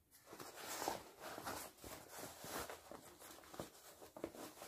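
Quiet, irregular rustling and crinkling of fabric as a sewn bag is pushed and pulled through its turning opening to turn it right side out.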